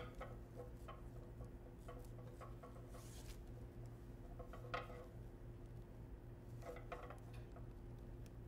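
Faint rustling of ribbon being pulled and knotted onto a dreamcatcher hoop, with a few light taps and scrapes scattered through, over a steady low hum.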